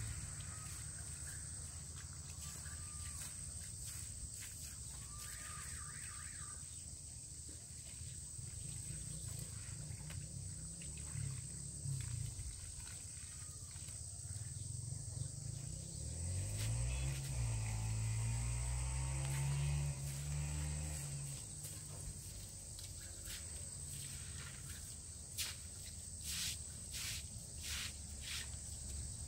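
Short straw broom sweeping and scrubbing wet concrete steps, a run of quick scratchy strokes near the end, over a steady low outdoor rumble. A low hum swells up for a few seconds past the middle.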